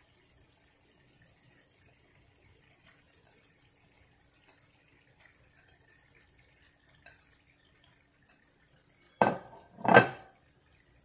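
Beef kofta balls being set one by one into a pan of thick masala, with only faint small ticks, then two loud clunks of kitchenware close together near the end.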